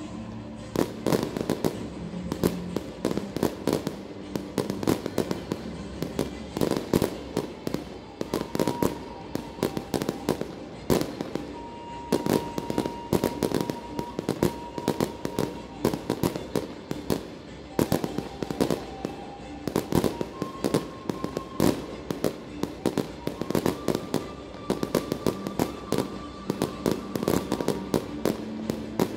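Fireworks display: shells bursting in a dense run of sharp bangs, several a second, from just after the start onward, over music with long held notes.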